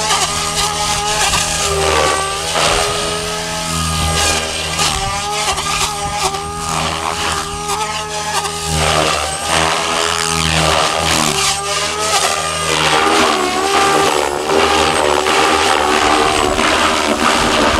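SAB Goblin radio-controlled helicopter flying 3D aerobatics: a continuous whine from its rotor head and drive that keeps swinging up and down in pitch through the manoeuvres, with whooshing blade noise.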